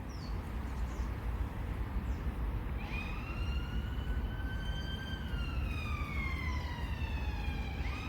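A siren starts about three seconds in: a slow wail that climbs gradually, then slides down for about three seconds before jumping back up. Beneath it runs a steady low rumble.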